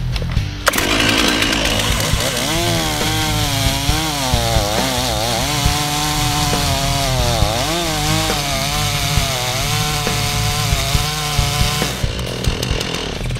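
STIHL chainsaw cutting into a tree trunk, making the angled top cut of a felling notch. The engine pitch dips and recovers as the chain bites into the wood. It starts about a second in and stops about a second before the end, with background music underneath.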